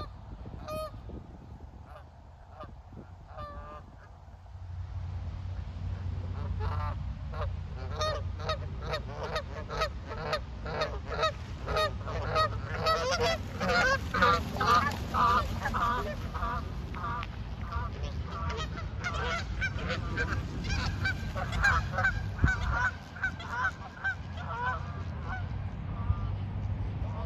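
A flock of Canada geese honking: a few scattered calls at first, then many rapid overlapping honks from about six seconds in, thinning out near the end, over a steady low rumble.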